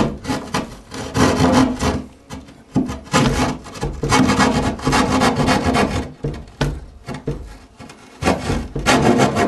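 Hand drywall jab saw sawing through a drywall panel in runs of quick rasping strokes, broken by short pauses.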